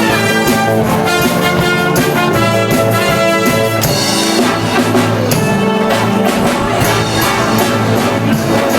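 Live wind band playing upbeat dance music: trumpets and trombones carrying the tune over a bass line and a regular drum beat.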